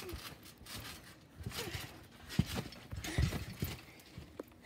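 Trampoline being bounced on: irregular thumps of feet and body landing on the mat, with the springs clanking, the heaviest landings a little after two seconds and around three seconds in.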